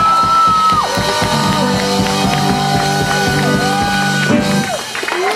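Live country-blues band playing loud, fast and rhythmic: amplified guitar, a fast drum beat and a high held vocal note near the start. The band stops about four and a half seconds in, and the crowd begins to yell.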